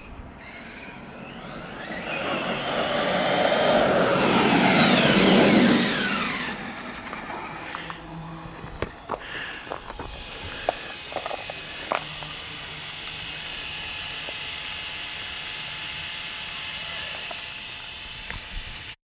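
Traxxas E-Revo RC truck with a 2000 kV brushless motor on a speed run: a high motor-and-gear whine rises as it approaches and drops in pitch as it races past, about five seconds in. After that come scattered clicks and knocks and a fainter steady whine.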